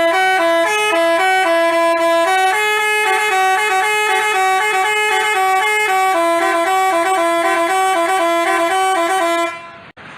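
Telolet multi-tone bus horn of the Basuri type playing a quick melody of stepped notes, sometimes two notes sounding together. The horn cuts off abruptly near the end, leaving a quieter hiss.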